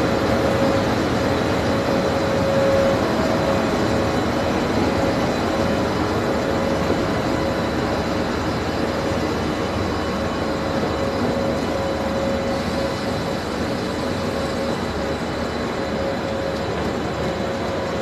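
WAP-5 electric locomotive and its passenger coaches rolling slowly past on the track, a steady running noise with a steady whine through it, slowly fading as the locomotive draws away.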